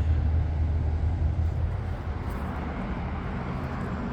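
Steady low hum and rumble of outdoor background noise, easing slightly about two seconds in.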